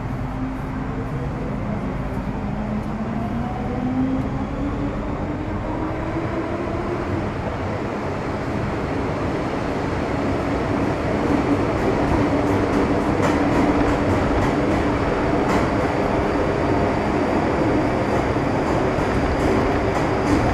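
Metro Cammell M-Train's GEC GTO chopper traction equipment whining as the train accelerates: several tones climb in pitch for the first several seconds, then hold steady over a rumbling wheel-and-track run that grows louder about halfway through.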